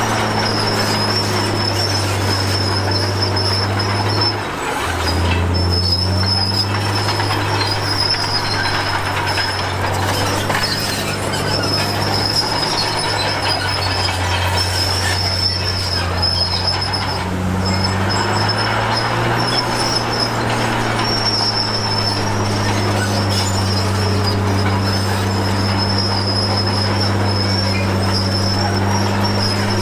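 Komatsu D53P crawler bulldozer's diesel engine running under load, its note shifting down about four seconds in and back up later, with a steady high squeal from the steel tracks over it.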